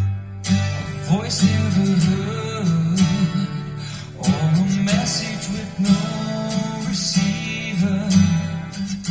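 A song with strummed acoustic guitar, a singing voice and heavy bass, played through a car audio system: the stock front speakers with added tweeters and a 12-inch subwoofer, driven by a Venom Pandora 2.4 digital sound processor in a two-way active setup.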